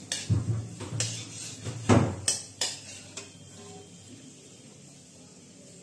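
A spatula knocking and scraping against an aluminium kadhai while stirring dry red chillies in a little hot oil. There are several sharp clinks and scrapes over about three seconds, the loudest near the two-second mark, and then the stirring stops.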